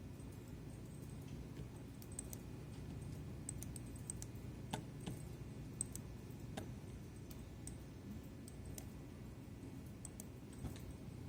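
Scattered clicks of computer keys, a few sharper ones in the middle, over a low steady hum.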